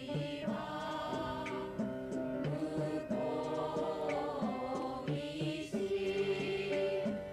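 A choir of women singing a song together.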